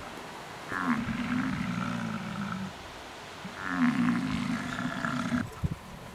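Bull American bison giving two long, low rutting bellows of about two seconds each, the second starting about a second after the first ends.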